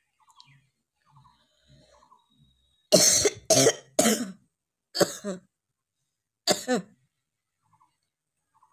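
A person coughing hard: a quick run of three coughs, then two more spaced about a second and a half apart.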